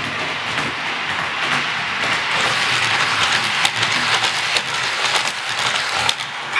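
00 gauge model train running on the track: a steady rushing of wheels on rail that grows louder, with many sharp clicks over rail joints in the second half.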